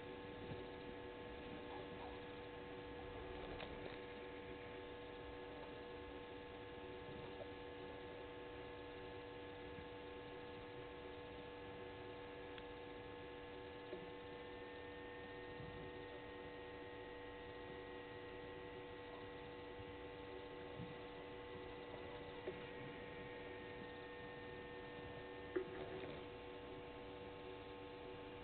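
Steady electrical hum of several fixed tones, with a fainter high whine that steps up slightly in pitch midway and stops near the end. A few faint clicks, the sharpest near the end.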